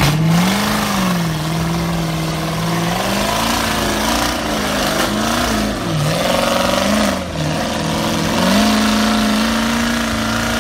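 Off-road buggy's engine revving up and down again and again as it claws up a steep, muddy slope, then held at higher revs near the end.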